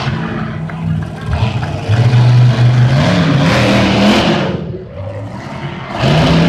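Monster truck engine revving in bursts, its note climbing in pitch about three seconds in, dropping away shortly after, and surging again just before the end.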